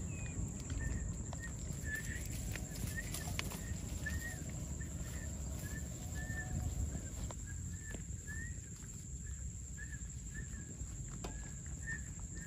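Outdoor ambience: a short chirping note, likely a bird, repeats about once a second over a steady high insect whine. A low rumble and occasional grass rustles sit underneath.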